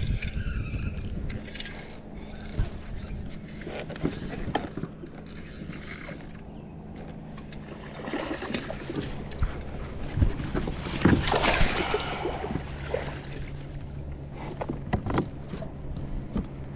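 Mechanical clicks and rattles from a fishing kayak and its gear over a steady low hum, with a louder burst of splashing water about eleven seconds in.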